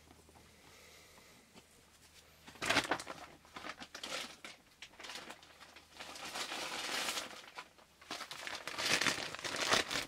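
Plastic bag rustling and crinkling as it is handled, in several bursts after a quiet start.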